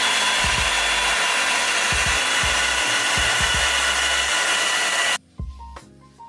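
Revlon One-Step Volumizer hot-air brush dryer running on its high setting: a loud, steady rush of air with a thin fan whine. It cuts off suddenly about five seconds in, and background music with a beat carries on.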